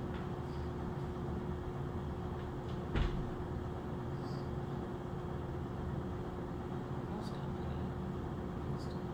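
Steady low hum with one constant tone, and a single short knock about three seconds in.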